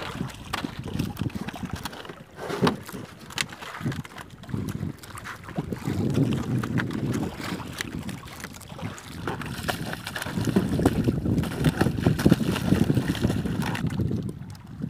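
Wind buffeting the microphone and sea water sloshing against a small outrigger boat's hull, coming in uneven gusts, with scattered small knocks.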